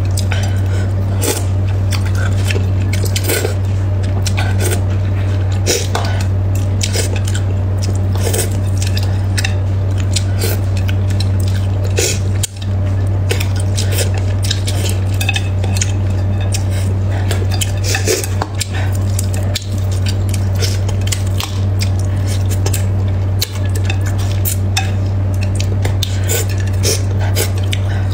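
Chopsticks clicking and scraping against a ceramic plate while picking meat off a braised fish's bones, with close-up chewing and eating sounds, over a steady low hum.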